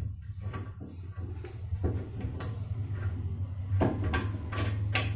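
Metal clinks and knocks as a front shock absorber strut is worked onto the steering knuckle and its lower bolt fitted: about five sharp clicks, the loudest in the second half, over a steady low hum.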